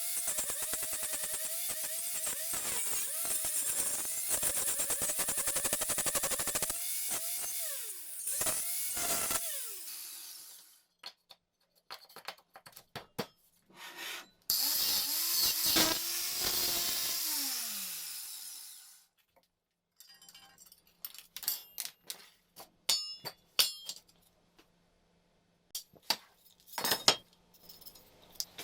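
A handheld power tool runs under load for about ten seconds and then winds down with a falling pitch. It runs again for about four seconds and winds down the same way. Light clicks and clinks of tool or metal handling follow.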